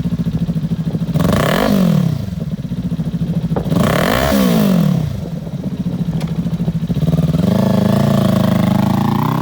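2019 Kawasaki Ninja 400's parallel-twin engine idling through an aftermarket Remus exhaust, blipped twice with quick rise-and-fall revs about a second and about four seconds in, then brought up more slowly and held at a higher speed near the end.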